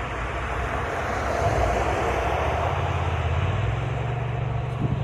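Steady engine noise of an Airbus Beluga cargo jet flying overhead, getting a little louder about a second and a half in.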